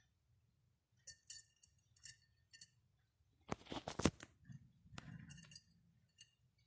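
Small sounds from a parrot breeding cage: a series of short, high clinks, with a louder burst of scraping about three and a half seconds in.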